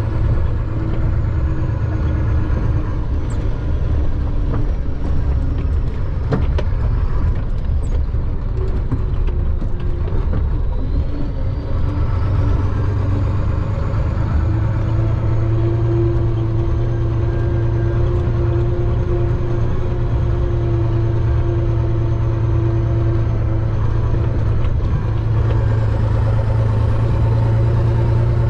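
Diesel engine of a Chenglong concrete mixer truck running steadily under way, heard from inside the cab, with a low steady drone. A faint high whine slowly falls over the first ten seconds or so, then rises and holds, and rises again near the end.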